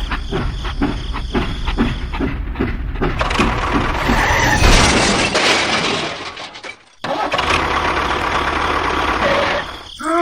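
An engine running with a regular knock about three times a second, then a loud hiss that fades and breaks off sharply, followed by steady noise.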